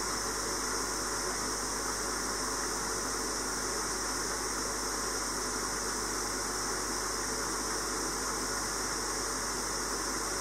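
Steady, unchanging hiss with a low hum underneath, with no distinct events.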